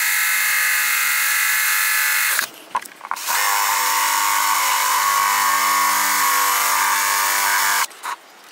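Cordless drill boring a hole into a wooden box, its motor whining steadily at speed. It runs in two long spells, stopping briefly about two and a half seconds in and cutting off just before the end.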